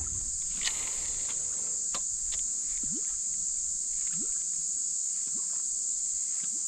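Steady high-pitched drone of insects, with a few faint clicks and small chirps over it.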